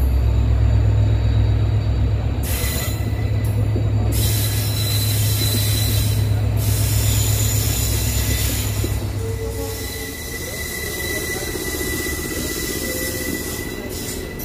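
Diesel-hauled express train running along the line: a strong deep drone that eases off about ten seconds in, with steady rail noise, gusts of hiss and a thin high whine.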